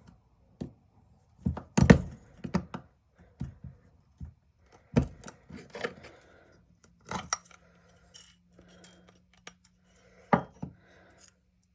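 Scattered metallic clicks, taps and scrapes of a flathead screwdriver working on an old, rusty carburetor body, with sharp knocks about two seconds in and near the end.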